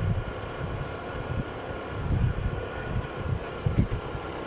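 Wind buffeting the microphone in irregular low gusts while travelling, over the steady running of a vehicle's engine.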